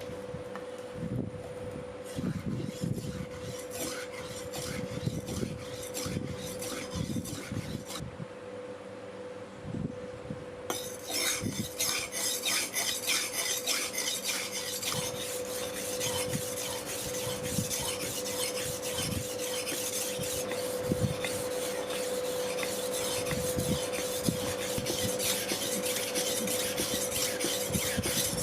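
A hand file rasping in repeated strokes, which grow louder and harsher after about ten seconds, over a steady hum.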